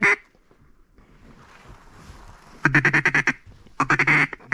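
Duck call blown in quick runs of short, reedy quacks, two runs in the second half, after a single quack at the very start and a faint breathy hiss.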